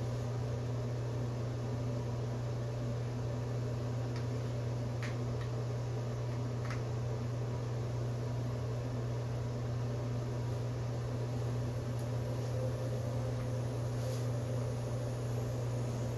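Steady low hum with an even background hiss. A few faint clicks of wooden alphabet puzzle pieces being handled come through it.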